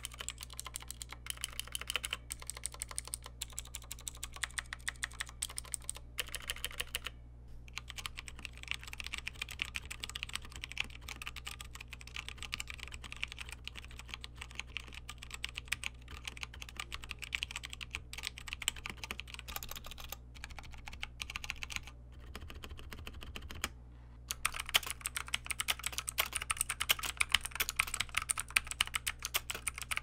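Typing test on the Havit mechanical keyboard with light tactile Huano Brown switches: a fast, steady run of keystroke clacks. It breaks off briefly about 7 seconds and 24 seconds in, and gets louder after the second break.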